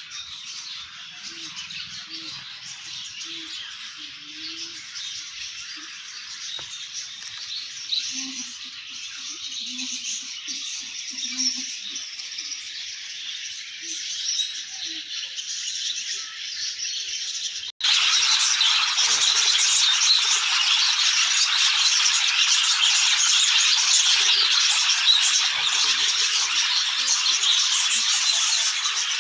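Many small aviary birds chirping and chattering in a continuous dense wash. It jumps abruptly louder about two-thirds of the way through.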